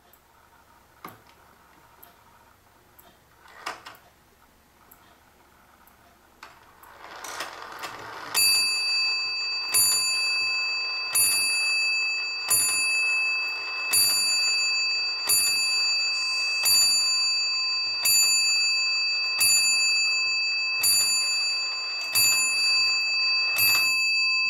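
Vintage kitchen clock striking twelve on its bell as the minute hand is brought round to the hour: twelve evenly spaced strokes about a second and a half apart, each ringing on. A few faint clicks come before them, and a short rising noise just before the first stroke.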